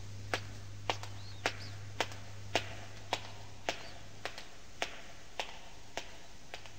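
Footsteps as a radio-play sound effect: evenly paced steps, a little under two a second, growing louder for the first few seconds and then fading away, over a low steady hum.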